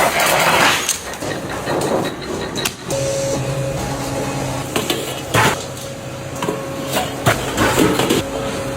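Metal knocks and clanks from cookware factory machinery, a few sharp strikes over a steady machine hum that sets in about three seconds in.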